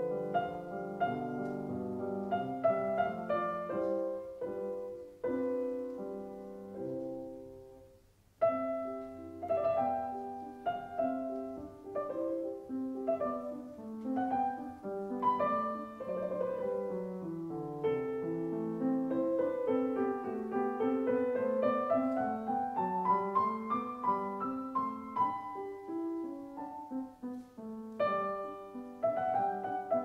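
Background piano music: a slow piano piece of single notes and chords. It fades down about eight seconds in, and a new phrase starts sharply half a second later.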